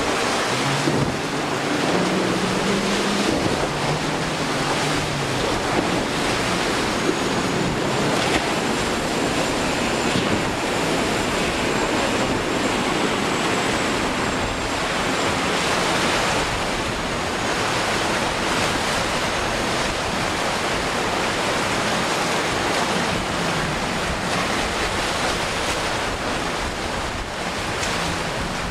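Steady wash of surf breaking in a rough inlet, with wind buffeting the microphone.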